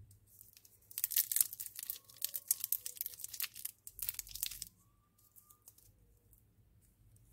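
Shiny lollipop wrapper being crinkled and torn open by hand: a dense run of crackling from about a second in until nearly five seconds in, then only a few faint rustles.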